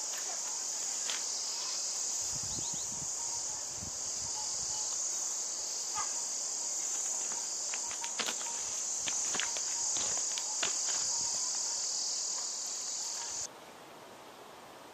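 Insect chorus: a dense, steady high-pitched shrill that cuts off suddenly near the end, with a few faint clicks and chirps over it.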